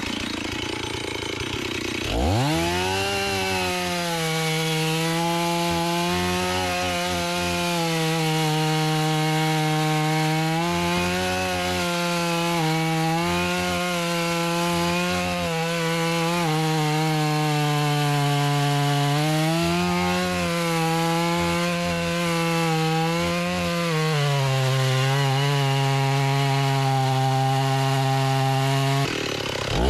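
Chainsaw revving up to full throttle about two seconds in and cutting into a large tree, its pitch sagging and recovering every few seconds as the chain bites into the wood; near the end it drops off briefly and revs up again.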